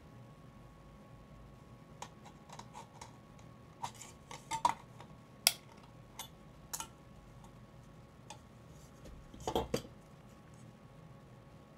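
Thin tinplate from an aerosol can being cut with scissors and handled: scattered sharp metallic clicks and clinks. The loudest comes about halfway through, with a quick cluster of snips near the end.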